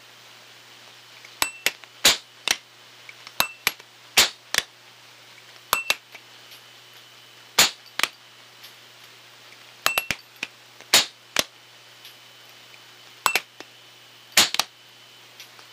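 Sharp metallic clicks from the mechanical action of a single-action firearm being worked, heard as ultrasonic sound mixed down into the audible range. The clicks come in irregular clusters of two to four, a few seconds apart, over a steady low hiss.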